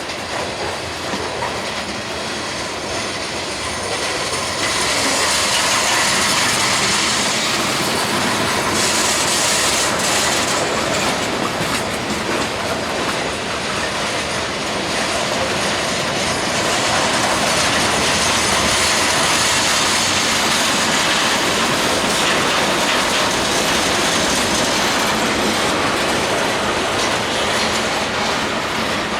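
CSX freight train cars rolling slowly past on the rails: a steady rolling and rail noise that gets louder about four seconds in, with a high hiss from the wheels at times.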